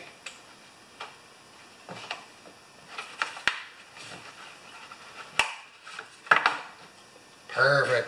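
Hands working on a lawn mower engine under its lifted plastic shroud: scattered clicks, knocks and light rattles of plastic and metal parts, with two sharp knocks about five and a half and six and a half seconds in.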